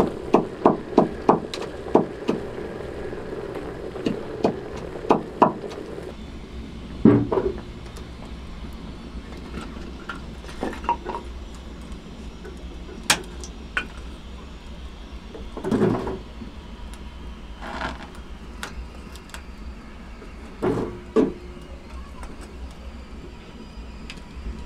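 Wood fire burning in a small sheet-metal stove under a pot of boiling potatoes. A quick run of sharp clicks and knocks fills the first six seconds, then come a few scattered dull thumps and a short rustle of paper being torn for the fire, over a steady low rumble.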